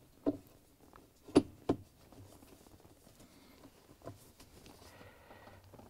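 A few sharp metallic clicks and knocks as a socket wrench on a long extension is worked down into a washer agitator onto its hold-down bolt. The loudest click comes about a second and a half in.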